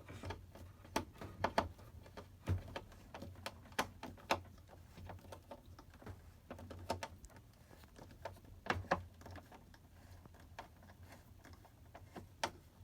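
Scattered sharp clicks and light knocks of hard plastic parts being handled and pushed into place as a replacement washer door lock trigger is fitted back into its housing.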